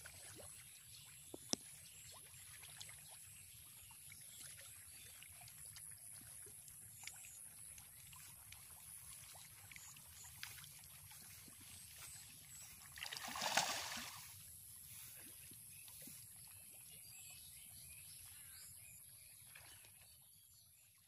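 Faint outdoor pond-side ambience: a low steady hiss with scattered small clicks, and one louder rushing splash of water lasting about a second, about two-thirds of the way in.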